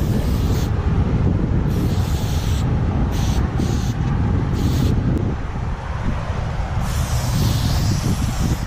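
Aerosol spray paint cans hissing in about six short bursts, the last and longest near the end, over heavy wind buffeting on the microphone.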